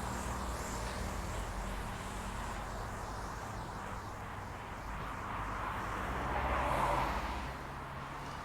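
Road traffic: engines running steadily, with one vehicle growing louder and passing about six to seven seconds in.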